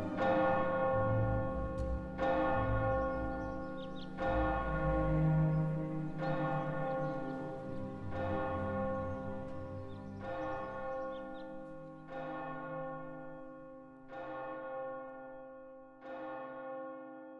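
A large church bell tolling slowly, one strike about every two seconds, each stroke ringing on into the next and the tolling growing gradually quieter. A low rumble sits under the first few strokes.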